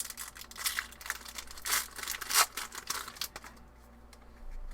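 Foil wrapper of a Pokémon trading card booster pack being torn open and crinkled, a series of short crackling bursts over the first three seconds or so, then quieter.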